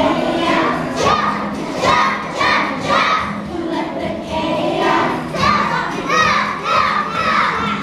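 A group of young children singing together as a choir, over a music accompaniment with a steady low note.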